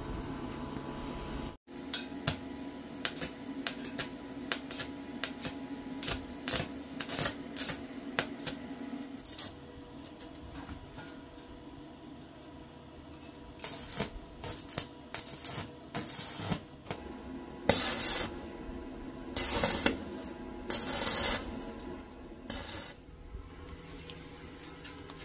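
Stick (arc) welding on iron bars: the arc crackles and spits in short, irregular runs, stopping and restarting as tack welds are laid. A dense spell of sharp crackles comes first, then a lull, then several half-second bursts of hissing crackle.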